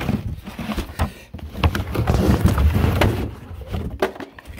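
Cardboard box and packaging being handled around a battery blower. Irregular rustling and scraping with scattered knocks, busiest and loudest in the middle.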